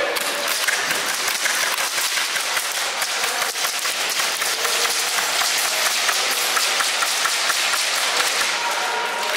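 Dense, rapid crackle of airsoft gunfire: many guns firing and BBs striking cover, an unbroken run of sharp clicks.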